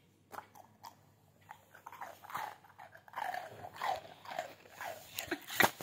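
Golden retriever biting and chewing a hard piece of rusk, a string of irregular crunches with a sharp crack near the end.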